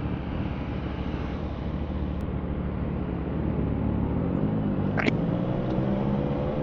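CFMOTO 675SR-R's 675 cc inline-three engine running under way, over road and wind noise; from about four seconds in its pitch climbs steadily as the bike accelerates. A brief, high rising chirp sounds once about five seconds in.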